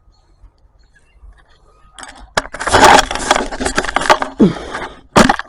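Catalytic converter being wrenched free of the exhaust and pulled out: about two seconds in, metal scraping and clanking sets in for about three seconds, then one sharp clank near the end.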